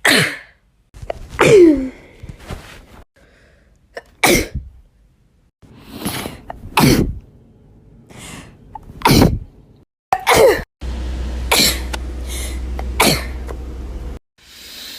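A woman sneezing again and again, about eight separate sneezes, each a sudden loud burst, some with a short in-breath before. A steady low hum runs underneath for a few seconds in the second half.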